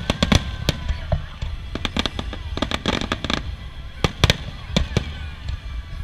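Aerial firework shells bursting: a rapid run of sharp bangs, bunched at the start, through the middle and again a little past two-thirds of the way through.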